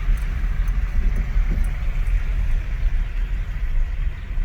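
Steady low rumble of a vehicle driving, with road noise.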